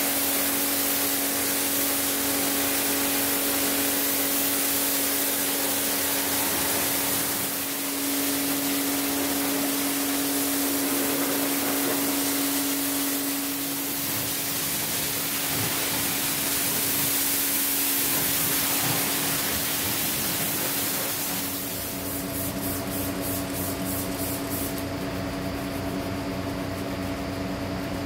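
Pressure washer spraying water over a car: a steady, loud hiss over a constant hum. About 22 seconds in the spray stops and a quieter steady noise carries on.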